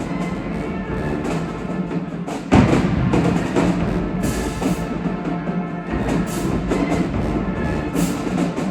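Music with heavy drums and percussion, getting louder and fuller about two and a half seconds in.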